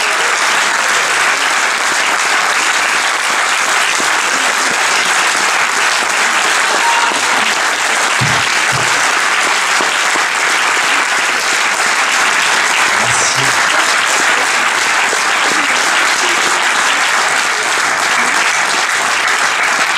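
A large cinema audience applauding, a dense and steady clapping that lasts throughout.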